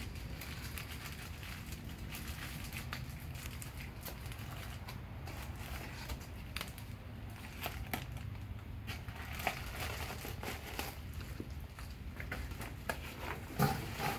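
Plastic and paper bags crinkling and rustling as a bagged part is packed back into a paper bag, with a few small handling clicks, over a low steady hum.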